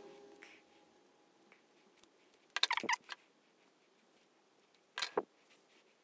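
Quiet metallic clicks of a steel wire loop and key rings being handled: a quick run of clicks about two and a half seconds in, then two more clicks near the five-second mark.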